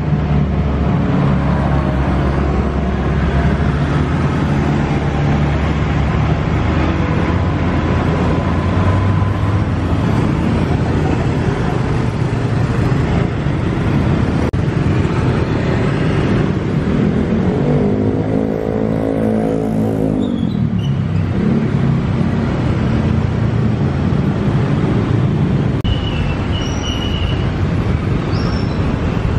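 Road traffic noise heard from a moving vehicle: a steady engine hum and road noise. Around eighteen seconds in, a louder engine rises and falls in pitch, and a few short high squeaks come near the end.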